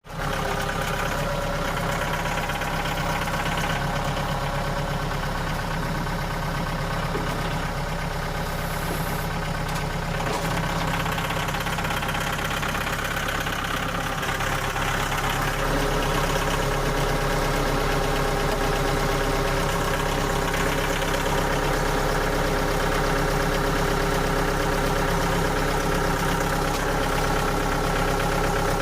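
An engine running steadily at idle, getting slightly louder about halfway through.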